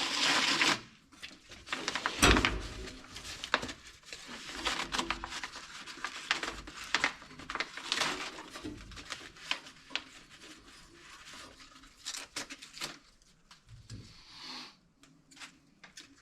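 Hands working baler twine in the baler's twine box: irregular rubbing, scraping and clicking, with a louder knock about two seconds in.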